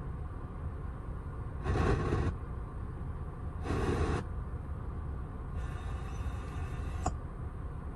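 Alpine ILX-F309 car stereo stepping through FM frequencies while searching for local stations: two short bursts of static about two seconds apart over a low steady rumble, then a fainter hiss and a single click near the end.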